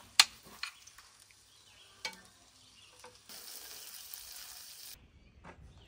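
A few sharp taps as pats of butter are knocked off a knife into a non-stick frying pan, then butter sizzling as it melts in the hot pan; the sizzle cuts off abruptly near the end.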